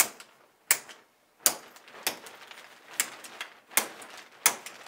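Support rods of a CheetahStand quick-open parabolic softbox clicking out of their locked positions at the speed ring, one after another, as it is collapsed: about seven sharp clicks, roughly one every three-quarters of a second.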